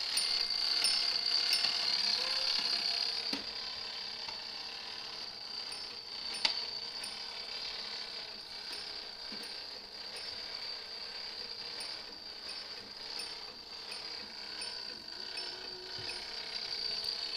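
Fire alarm master box's code mechanism running, ticking and whirring as it sends out its code, in groups of rapid ticks, over a steady high-pitched tone.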